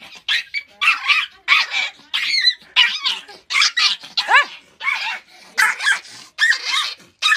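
Small puppy yapping and yelping over and over, about two sharp high-pitched barks a second, some of them sliding up and down in pitch.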